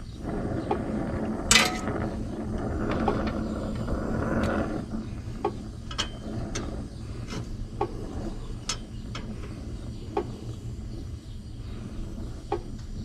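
Gas brazing torch flame hissing steadily as it heats a copper pipe joint on an air-conditioner compressor, louder in the first few seconds, with scattered sharp clicks and ticks throughout.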